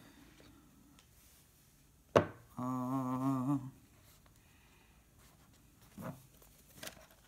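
A sharp knock about two seconds in, then a person humming one short, slightly wavering note for about a second, over quiet handling of a cardboard phone box as its lid comes off, with a soft bump near the end.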